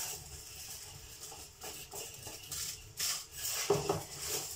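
Faint, irregular rustling and crinkling of tin foil as fingers rub butter over the foil lining inside a cake tin, with a brief vocal murmur near the end.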